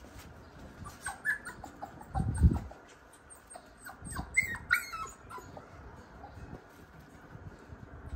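Puppy whimpering in short, high, falling whines, in little clusters, with a dull low thump about two and a half seconds in.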